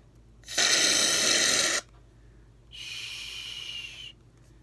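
Barbasol shaving cream aerosol can spraying foam into a plastic cup: a loud hiss lasting just over a second, then a second, quieter hiss with a faint steady whistle in it.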